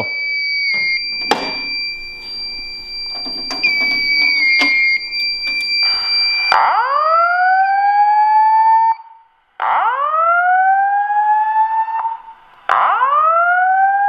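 Fire alarm system in alarm after its smoke detector is tripped with a test magnet: first a steady high electronic tone with a few clicks, then, from about six and a half seconds in, a voice evacuation speaker sounds three rising 'whoop' tones, each about two and a half seconds long with short gaps between them.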